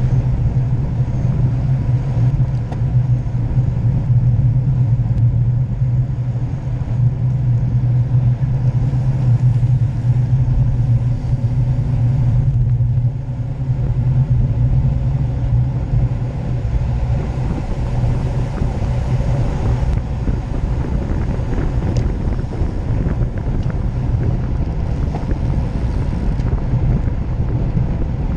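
Wind rushing over the microphone of a camera mounted on a road bike ridden at racing speed, with a steady low rumble of road and tyre noise. It eases briefly about halfway through, then carries on.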